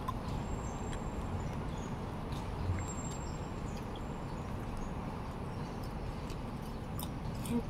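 Steady low background noise of an outdoor setting, with a few faint clicks.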